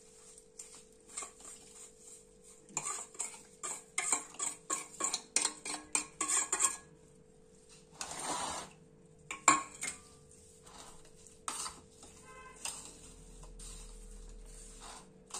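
A metal spoon stirring salted green chillies and lemon pieces in a ceramic bowl, clinking and scraping against the bowl. A quick run of clinks comes in the first half, then a longer scrape and a few single clinks.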